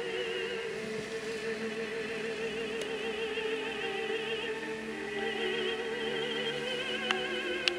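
Operatic music: a voice sings long held notes with a wide vibrato, with a short break about two-thirds of the way through. Two sharp clicks come near the end.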